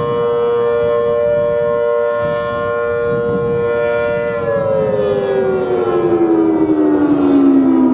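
Federal Signal Thunderbolt 1000T outdoor warning siren, a blower-driven siren with a 4/5-port chopper, sounding a steady two-note chord for its Alert signal. About four and a half seconds in, the pitch begins falling steadily as the siren winds down at the end of the test signal.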